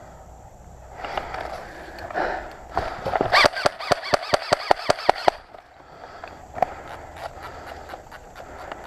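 Airsoft gun firing a rapid string of about fifteen sharp shots, six or seven a second, lasting a little over two seconds, with rustling before it.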